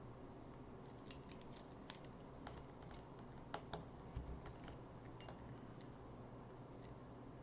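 Faint, irregular light clicks and taps of small tools and tiny metal parts on an opened iPhone 6s Plus, several a second in loose clusters from about a second in, loudest near the middle.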